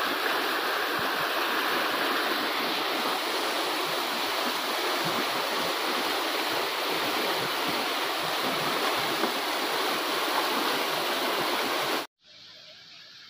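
Muddy floodwater rushing fast down a narrow channel swollen by heavy monsoon rain, a steady loud rush. About twelve seconds in it cuts off suddenly to a much quieter steady hiss.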